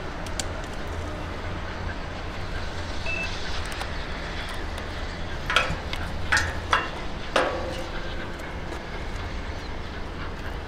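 Victorian Railways K-class steam locomotive approaching slowly: a steady low rumble, with four short chuffs a little past halfway.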